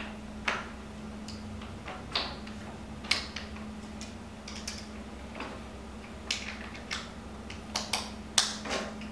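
Scattered light metallic clicks and clinks, about a dozen spread irregularly and bunched near the end, from the steel parts of a square drive hydraulic torque wrench being handled as its square drive is repositioned. A steady low hum runs underneath.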